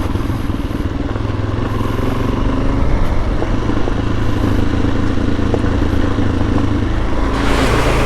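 Suzuki DR-Z400S single-cylinder four-stroke engine running steadily as the motorcycle is ridden, with a rush of hiss building about seven seconds in.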